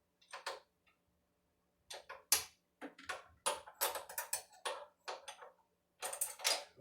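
Irregular run of small metallic clicks and taps as a router bit and collet are handled and fitted by hand: a couple near the start, then a quick clatter from about two seconds in.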